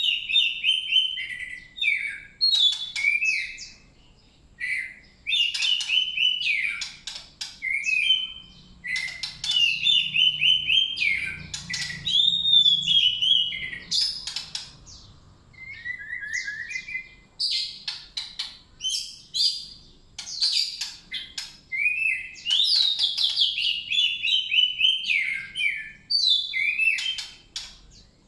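A songbird singing loud, varied phrases of rapid chirps, whistles and trills, in bursts of a few seconds separated by short pauses.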